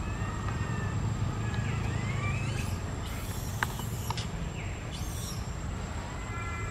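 Outdoor ambience: a steady low rumble under scattered high whistled calls that glide up and down, with a faint steady high whine. Two short bursts of rustling hiss and a couple of clicks come in the middle.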